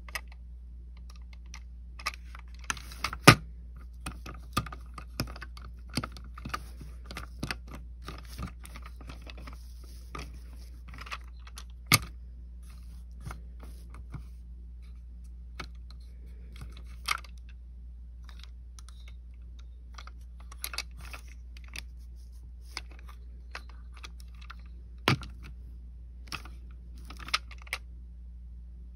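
Plastic Road Rippers Muscle Rods toy Audi TT being handled and pushed over a paper towel: irregular small clicks and light rattles of its hard plastic parts, with a few sharper knocks, about 3, 12 and 25 seconds in.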